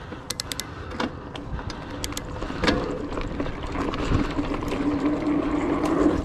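2019 Trek Roscoe 8 mountain bike rolling fast downhill on hard-packed dirt: clicks and rattles, then a steady buzzing hum from the tyres from about halfway through, over low wind rumble on the chest-mounted microphone.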